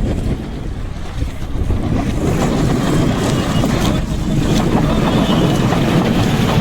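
Loud wind buffeting the microphone aboard a sailing boat, a dense low rumble.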